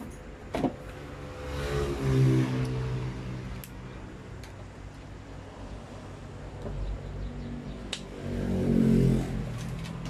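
A motor vehicle's engine passing by twice, a hum that swells about one and a half seconds in and again near the end, with a few sharp clicks of objects being handled.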